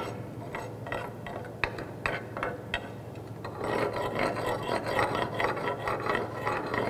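Steel chipping hammer knocking slag off a flux-cored weld bead on steel plate: separate sharp taps over the first few seconds, then quicker scraping and chipping along the bead for the rest.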